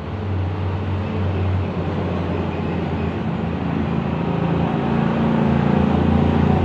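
An engine running steadily with a low hum, growing a little louder in the second half.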